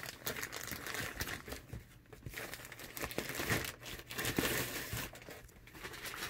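Plastic poly mailer bag crinkling and rustling as it is pulled open and a cardboard box is drawn out of it, with some tearing of the plastic.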